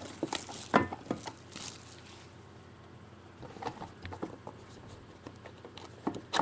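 A trading card box being opened and its contents handled: scattered rustles, taps and scrapes of cardboard and wrapper, busiest in the first two seconds, sparser in the middle, with a few more near the end.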